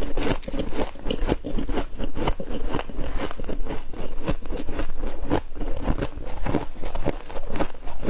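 Fluffy freezer frost crunching close to the microphone: a dense, irregular run of crisp crunches.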